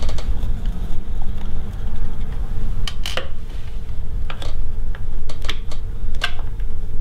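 Small metal clicks and taps from the screws and needle plate of a Siruba L-600 industrial sewing machine as the plate is handled and lifted off, several clicks from about three seconds in. Under them runs a steady low hum.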